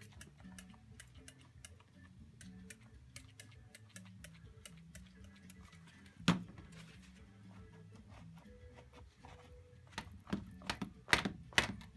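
Hand spray bottle misting water onto a canvas: one sharp squirt about six seconds in, then a quick run of squirts near the end. Faint background music with a ticking beat runs underneath.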